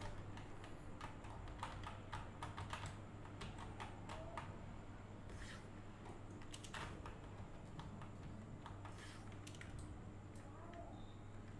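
Faint, irregular clicks of a computer mouse and keyboard, with a steady low hum underneath.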